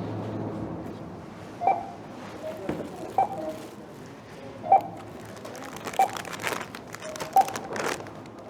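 Five short electronic beeps about a second and a half apart, like buttons being pressed on a keypad, over rustling and handling noise.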